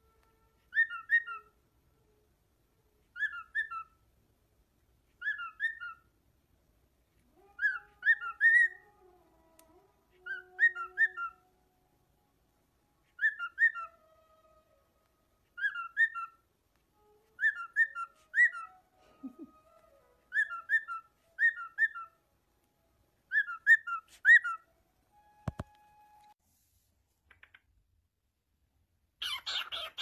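Cockatiel whistling the same short, quick phrase over and over, about a dozen times at roughly two-second intervals, then falling silent. Near the end there is a single click and then a brief rustling, noisy burst.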